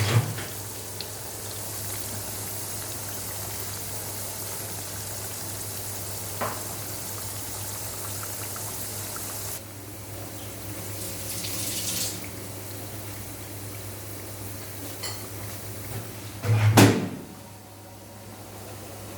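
Water running from a kitchen tap, stopping about halfway through, with dishes clinking and a loud clatter near the end.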